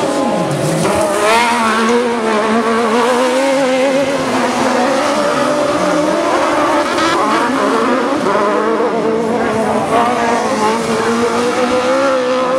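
Several Buggy1600 autocross buggies racing together on dirt, their engines revving up and down over one another as they accelerate through a corner. One engine drops sharply in pitch just after the start.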